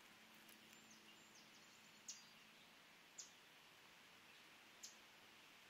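Faint, brief high chip notes from small songbirds, three spaced about a second apart, over a quiet background hiss.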